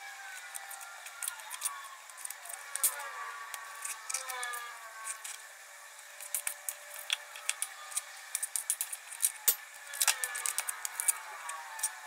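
Kitchen knife cutting raw chicken breast on a plastic cutting board: irregular clicks and taps of the blade meeting the board, coming thicker in the second half.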